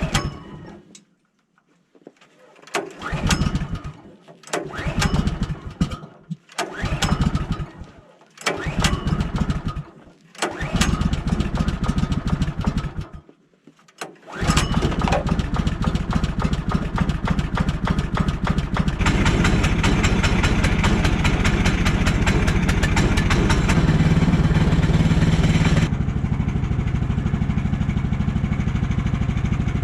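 Small gasoline engine of a Woodland Mills HM130 sawmill cold-starting in deep frost. It fires in about six short bursts that die out, then catches about 14 seconds in and runs on. It speeds up for several seconds, then settles to a steadier, lower running speed near the end.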